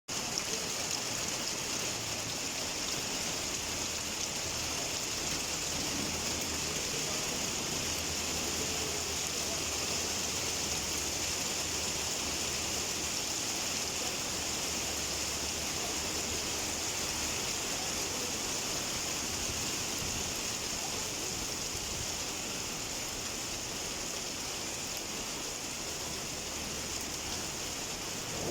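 Rain falling steadily: a continuous even hiss that does not let up.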